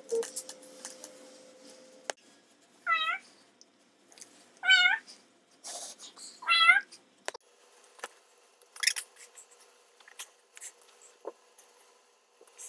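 Domestic cat meowing three times, each a short call that rises and falls in pitch, nearly two seconds apart; the last is the loudest. Scattered light clicks and rustles.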